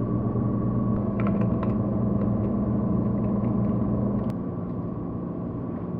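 Steady electrical hum from a refrigerated drinks vending machine, with a few light clicks and taps, the sharpest about four seconds in.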